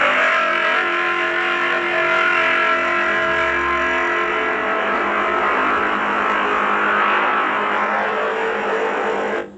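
A recording played back through a smartphone voice-changer app's 'Robot Optimus' effect: a steady drone of several held tones stacked together that cuts off suddenly near the end.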